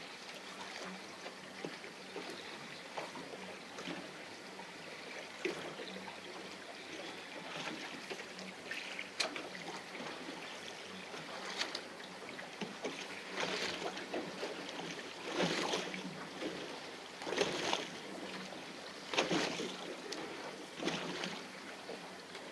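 Fishing boat at sea: a steady low hum under the noise of water and wind. In the second half, water surges against the hull about every two seconds.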